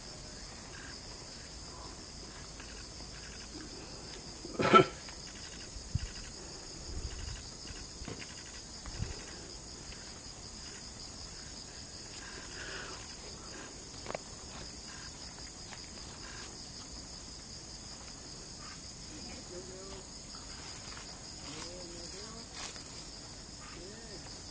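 Steady high-pitched insect chorus, with one brief loud noise about five seconds in.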